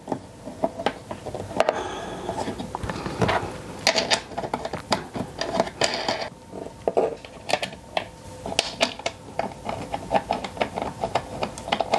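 Dense, irregular clicking, tapping and rattling of small hardware and tools being handled while parts are fitted into a battery box's front panel, over a faint steady hum.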